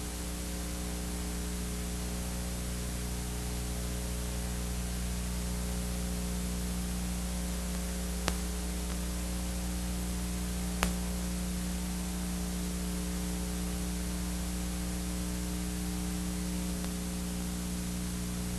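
Steady electrical hum with a row of even overtones over a constant hiss, with two brief clicks about eight and eleven seconds in.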